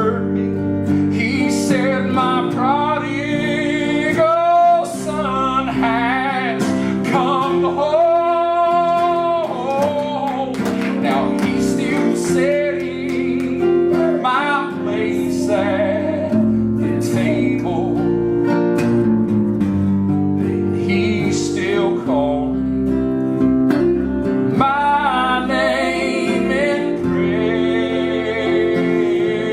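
A southern gospel song sung by a vocalist over sustained instrumental accompaniment.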